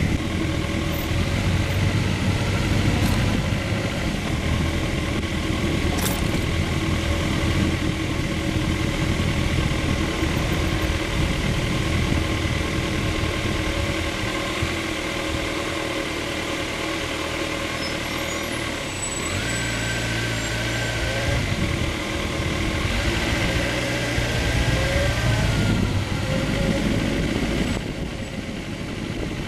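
Motorcycle engine running at low speed under steady wind and road noise while the bike filters between lines of slow traffic; past the middle its pitch rises and falls a few times with the throttle.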